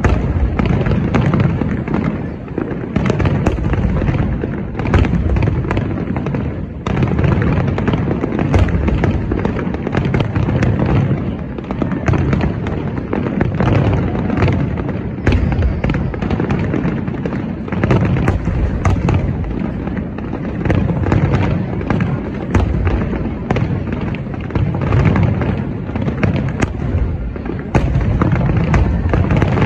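Fireworks display: aerial shells bursting in near-continuous succession, deep booms overlapping with sharp pops and crackles.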